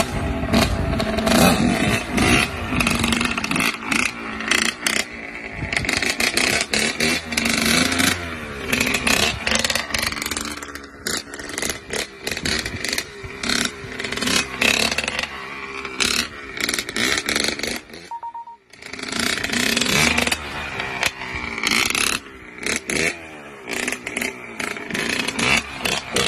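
Dirt bike engine revving up and down repeatedly as the rider rides wheelies, its pitch rising and falling with each throttle blip. The sound breaks off briefly about two-thirds of the way through, then the revving picks up again.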